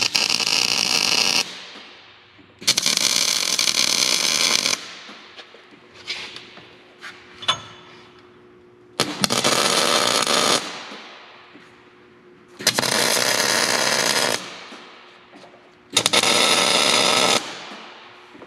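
MIG welder laying tack welds on steel brackets: five separate bursts of steady arc crackle, each lasting about one and a half to two seconds, with short pauses between them.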